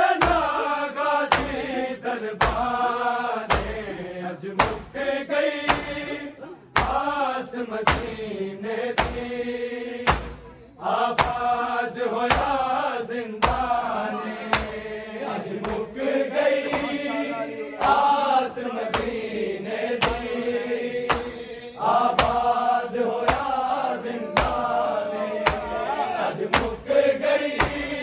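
A group of men chanting a Shia noha in unison, kept in time by rhythmic matam, hands slapping on chests in a steady beat of roughly three strikes every two seconds.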